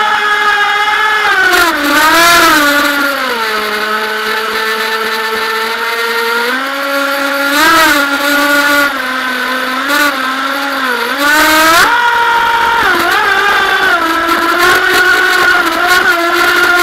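Feilun FT011 RC racing boat's brushless electric motor whining, heard from a camera on the hull. Its pitch drops, holds, and climbs again several times as the throttle changes. Short bursts of water hiss break in a few times as the hull hits the chop.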